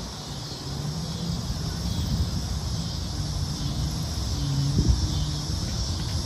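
Outdoor summer ambience: a steady high-pitched chorus of insects over a low rumble of wind and traffic.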